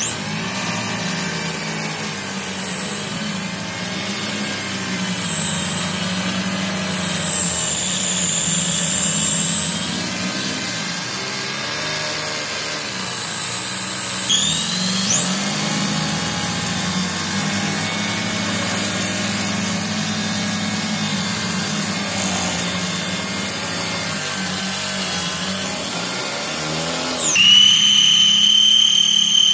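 RC car doing a burnout on the spot: its motor spins the wheels up to a high, steady whine over the rumble of the spinning tyres. The whine dips and climbs again about halfway through, then drops to a lower pitch near the end.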